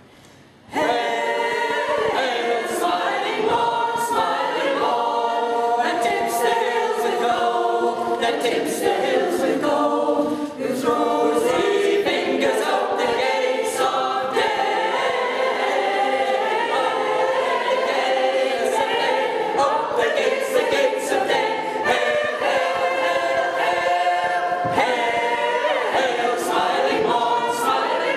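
Mixed choir of men's and women's voices singing unaccompanied in harmony, coming in together about a second in.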